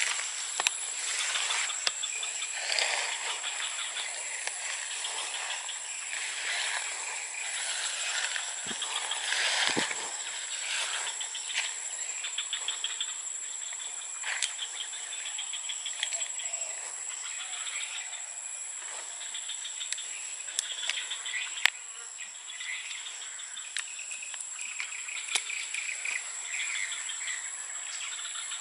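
Insects chirring without a break: a steady high-pitched buzz over a busy chirping, with a few faint scattered clicks.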